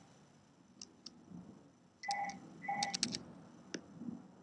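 Faint computer mouse clicks: a couple of single clicks, then a quick cluster of clicks a couple of seconds in, with two short faint beeps among them.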